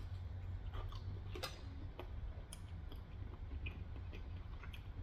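Eating sounds: a scattering of small, irregular clicks and crackles from chewing food, over a low steady hum.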